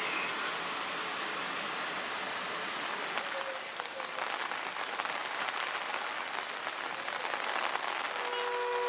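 Heavy rain falling hard, a dense hiss with many drops pattering on surfaces. Near the end a steady tone with several pitches starts.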